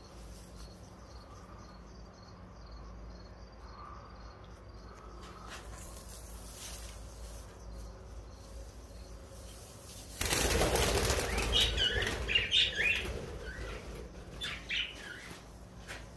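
A sudden flurry of budgerigar wing flapping about ten seconds in, followed by a few short high chirps.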